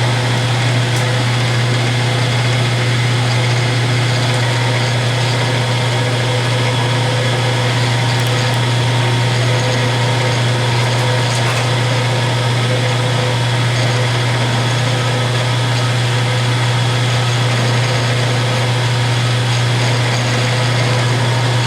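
Milling machine spindle running steadily with a small spot drill in the chuck, spot-drilling a broken screw: a loud, even low hum with fainter higher tones.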